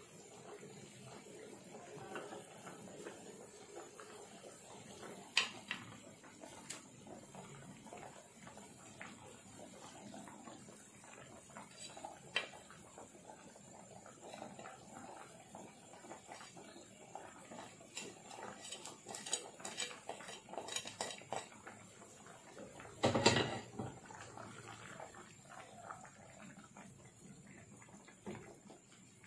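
A wooden spatula stirring thick coconut-milk rendang in a non-stick frying pan. Scattered clicks and scrapes of the spatula against the pan and a plate, with a louder knock about three quarters of the way through.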